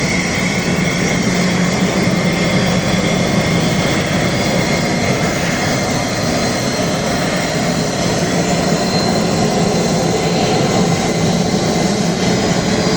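Jet aircraft engine running steadily and loudly, a continuous even rush of noise with a low hum underneath.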